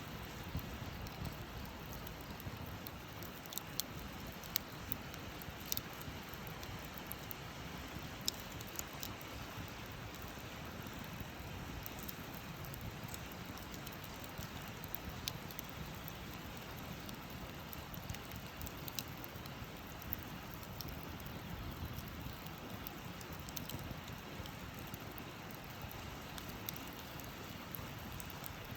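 Campfire burning: a steady hiss with scattered sharp crackles and pops from the burning wood.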